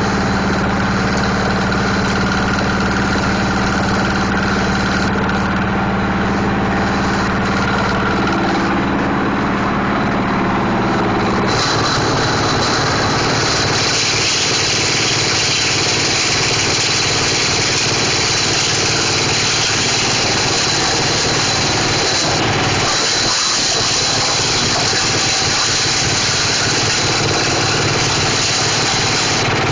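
Plastic shredder machine running with a steady mechanical hum; about eleven seconds in the sound changes to a harsher, hissier noise that carries on steadily.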